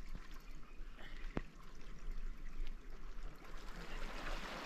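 Water lapping and trickling against a rocky shoreline, a steady wash that grows a little louder near the end, with one sharp click about a second and a half in.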